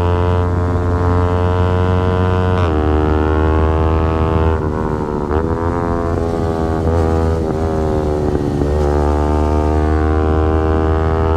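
Yamaha R15 V4's 155 cc single-cylinder engine running hard, its pitch dropping about two and a half seconds in as a gear is changed, then dipping and picking back up several times through the middle.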